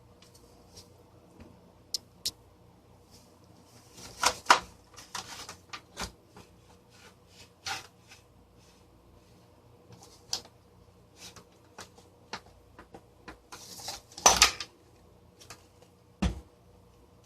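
Plastic housing parts of a desk fan being handled and pulled apart: scattered clicks and knocks, with louder clattering about four seconds in and again near the end, then a dull thump.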